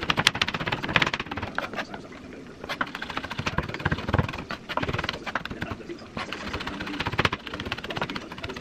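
Chef's knife chopping on a wooden cutting board: fast runs of sharp taps as garlic is minced, broken by short pauses.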